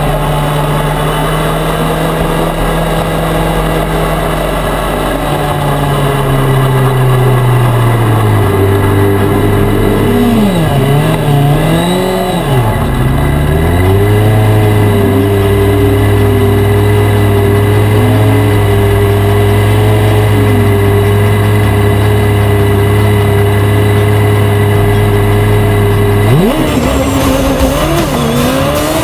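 Formula Student race car's engine heard onboard: a steady note that drops, is blipped up and down a few times, then holds steady at the start line before revving sharply upward as the car launches about 26 seconds in.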